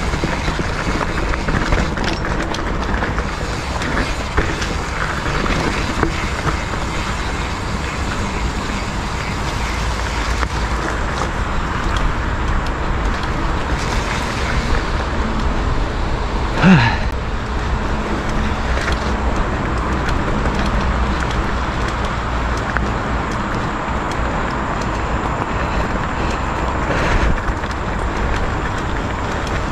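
Mountain bike riding a dirt and leaf-covered singletrack: steady wind rumble on the mounted camera with tyre noise and the small rattles and clicks of the bike over the bumpy trail. One sharper, louder knock comes a little past halfway.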